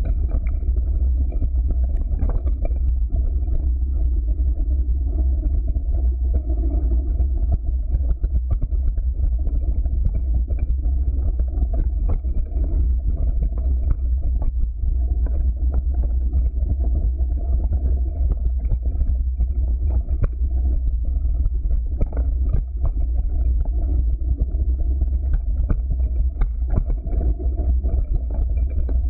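Mountain bike descending a rocky, leaf-covered dirt trail: a continuous low rumble from wind buffeting the bike-mounted camera's microphone and the tyres rolling over the ground, with frequent small knocks and rattles as the bike runs over stones and roots.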